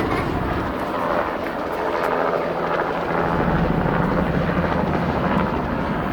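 Hospital air-ambulance helicopter flying close by, its rotor beating steadily over the engine's whine.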